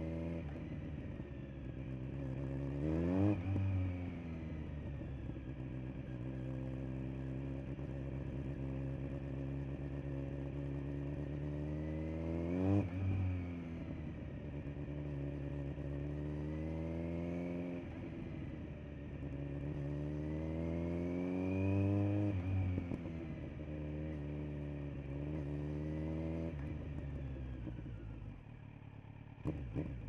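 Kawasaki Z900's inline-four engine through a LeoVince LV10 Carbon slip-on silencer, under way. The exhaust note rises and falls with the throttle, climbing sharply to a loud peak three times, and drops quieter near the end.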